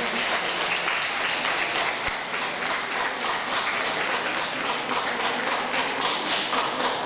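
Audience applauding steadily, a dense patter of many hands clapping; in the second half the claps fall into a more even, rhythmic beat.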